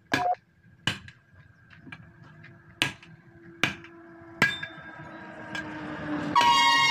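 Five hammer blows on the steel rim of a truck tyre being fitted, spaced unevenly over the first four and a half seconds. Then a vehicle is heard approaching, and about six seconds in a vehicle horn sounds loudly.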